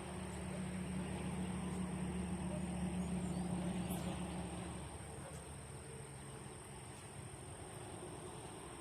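A motor running steadily at a distance, fading away about five seconds in.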